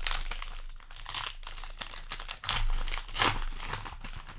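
Foil booster-pack wrapper crinkling as it is handled, in crackly bursts, loudest at the start and again about two and a half to three and a half seconds in.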